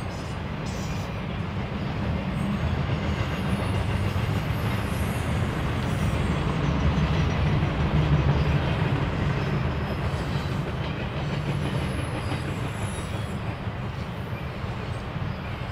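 A train rolling past on the rails, a continuous rumble that grows louder to a peak about halfway through and then eases off.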